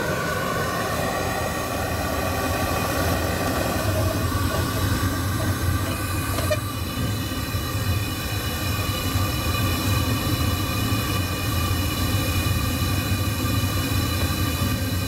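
Amal gas burner running lit: a steady roar with several ringing tones over it. About six and a half seconds in there is a light knock, and the ringing tones become stronger and steadier as the burner is seated in the forge.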